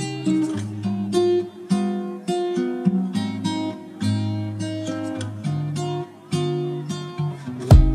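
Background music: acoustic guitar picking and strumming a melody over bass notes, with sharper percussive hits coming in just before the end.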